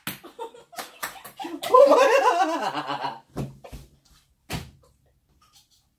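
A ping-pong ball clicking off several hard surfaces in quick succession. About two seconds in, loud excited laughing and shrieking lasts a little over a second. A couple more sharp taps follow.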